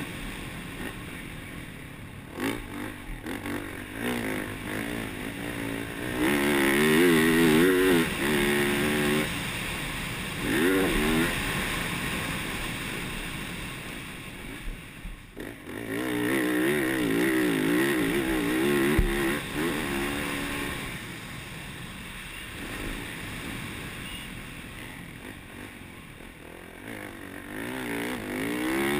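Yamaha YZ450F's single-cylinder four-stroke engine heard onboard under riding, revving up and down with the throttle. It is loudest in two hard pulls, about six seconds in and again about sixteen seconds in, and backs off in between.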